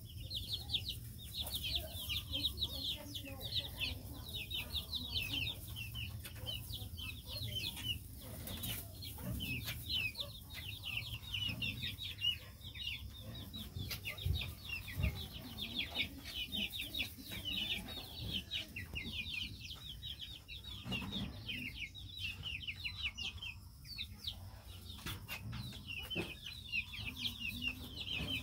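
A flock of young chicks peeping constantly, many short high-pitched calls overlapping, with only brief lulls.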